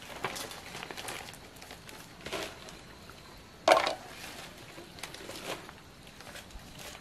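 Leaves rustling and crinkling as the wrapped sticky-rice cakes and their leaf wrappings are handled, in several short bursts, the loudest a little past halfway.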